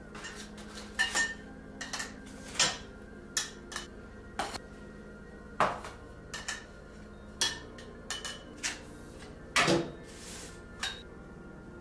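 Aluminium shelf-leg rods clinking and knocking against each other as they are picked up and laid down: irregular sharp metal clinks, some ringing briefly, with the loudest cluster late on.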